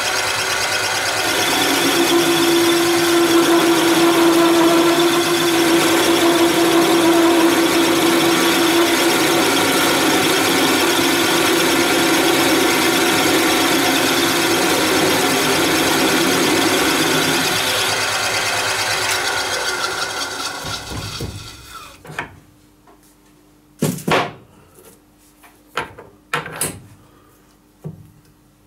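Metal lathe turning a metal bar held in its three-jaw chuck with a cutting tool: a loud, steady running and cutting noise with a steady tone through part of it. About twenty seconds in the lathe winds down and stops, followed by a few sharp clicks.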